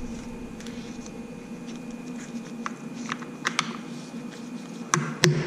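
Light metal clicks as a clip-on wheel weight is handled and set on the steel rim's edge, then near the end sharp taps, about three a second, as the weight is hammered onto the rim lip with a wheel-weight hammer. A steady low hum sits underneath.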